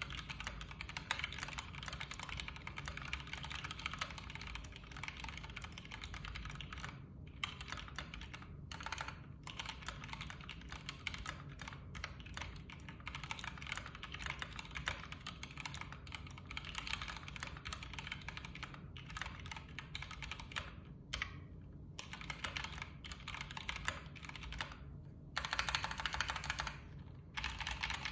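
Mechanical keyboard with stock, unlubricated Gateron Ink Black v2 linear switches being typed on steadily, with a few brief pauses. Near the end comes a louder, faster burst of keystrokes.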